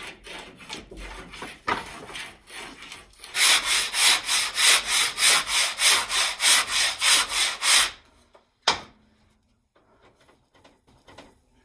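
Sandpaper on a flexible sanding board (torture board) rubbing back and forth over Huon pine hull planking in quick, even strokes, about three a second, for roughly four seconds before it stops. Lighter, softer scratching strokes of pencil hatching on the planking come first, and a single short knock follows the sanding.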